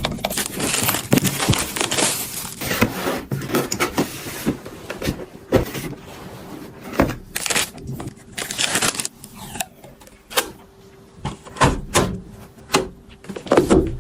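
Things being handled, with irregular knocks, clicks and rustling. A steady hum runs under the second half.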